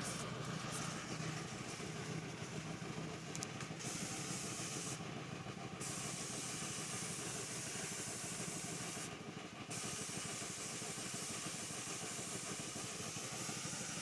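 Paint spray gun hissing steadily as a door is sprayed, with the trigger let off briefly twice, about five seconds in and again about nine seconds in. A low steady motor hum runs underneath.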